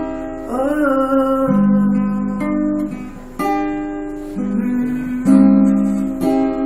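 Acoustic guitar strummed in chords in a steady song rhythm, the chord changing about once a second. A short wavering sung note comes about half a second in.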